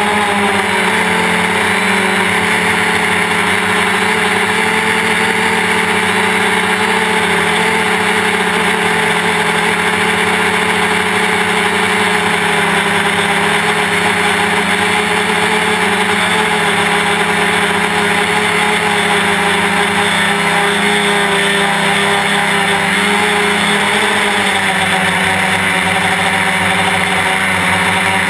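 Quadcopter's brushless outrunner motors and propellers, heard from on board, droning steadily in flight as a cluster of steady tones over a rushing hiss, the pitch shifting slightly as the throttle changes near the end.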